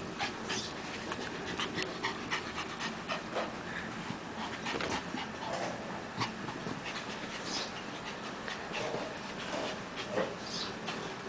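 Small dogs panting in short, quick breaths while playing chase with a puppy.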